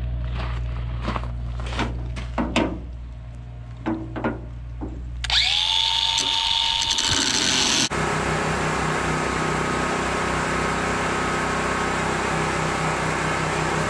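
A cordless angle grinder spins up with a rising whine, runs for about two and a half seconds against a steel trailer fender, then cuts off abruptly. Before it come a low steady hum and a few sharp knocks and clicks; after it, a different steady mechanical hum with a faint whine.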